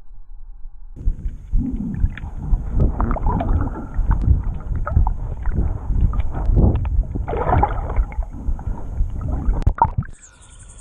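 Water splashing and sloshing in an irregular run of strokes, typical of someone wading through shallow water. Near the end it cuts off abruptly.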